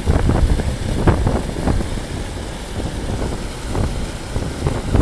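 Wind buffeting the microphone: a loud low rumble with irregular gusts.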